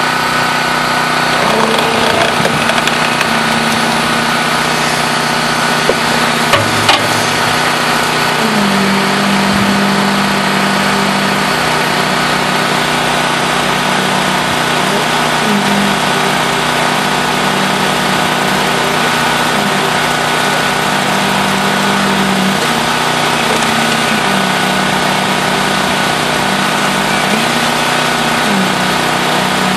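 Construction machinery running steadily during a concrete pour, an engine-like drone with a hum that shifts slightly in pitch every few seconds. A few sharp knocks come about six to seven seconds in.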